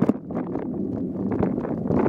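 Wind rushing on the microphone of a camera riding along on a mountain bike, with quick irregular knocks and rattles from the bike and mount jolting over a bumpy trail.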